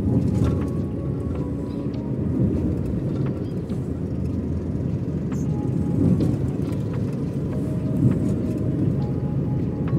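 Steady road and engine noise heard from inside the cabin of a moving car: a low rumble.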